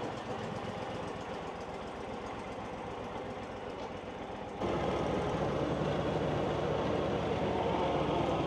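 An engine running steadily, then opened up to a higher, louder run about halfway through.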